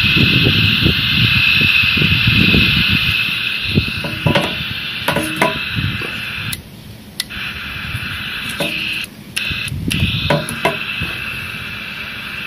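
AN/PRC-77 military radio giving a steady hiss of receiver static, which cuts out abruptly a few times: once around six to seven seconds in and twice around nine to ten seconds in. Irregular clicks and handling knocks sound under the hiss.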